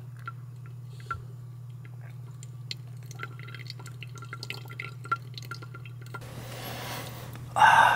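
Hot water poured in a thin stream from a gooseneck kettle onto coffee grounds in a paper-lined pour-over dripper, trickling and dripping with small scattered ticks, over a steady low hum. Near the end a sudden loud burst of noise cuts in.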